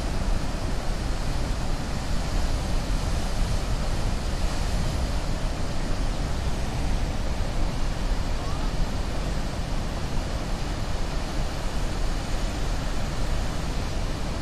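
Aharbal waterfall: a large volume of river water plunging into a churning pool, a steady, even rush with a heavy low rumble.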